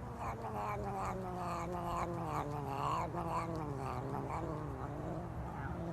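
A cat yowling: one long, wavering moan that slowly falls in pitch, over a steady low hum.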